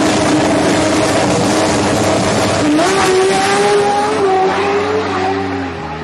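Toyota Supra MK IV's 2JZ straight-six at high revs, its note held steady, then rising sharply about three seconds in and wavering before dropping near the end, over a constant hiss of noise.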